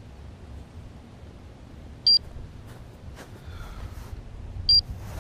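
A landed FPV quadcopter's buzzer beeping, a short high beep about every two and a half seconds: about two seconds in and again near the end. Wind rumbles steadily under it, with faint rustling near the end.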